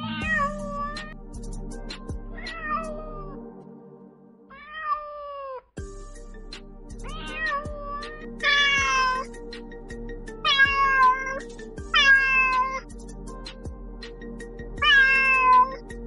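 Kitten meowing about eight times, each meow a short call that rises and then falls, the louder ones in the second half, over background music. The music breaks off briefly and restarts about six seconds in.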